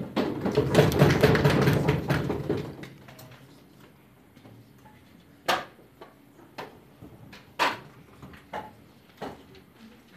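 Audience applauding for about two and a half seconds, then dying away. After that come a few separate sharp knocks, roughly one a second.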